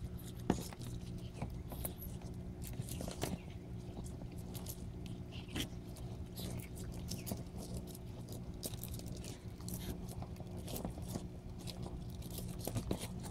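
Eastern box turtles biting and tearing at a dead brown rat: irregular crunching and clicking bites with some scraping, the sharpest click about half a second in.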